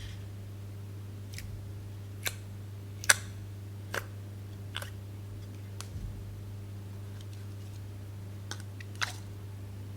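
Slime being worked by hand, giving sharp clicks and pops at irregular intervals, about eight in all, the loudest a little after three seconds in. A steady low hum runs underneath.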